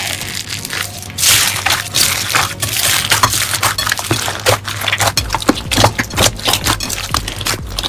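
Crunchy slime being squeezed and pressed by hand: a dense, irregular run of crackling and popping clicks, with a longer crunching hiss about a second in.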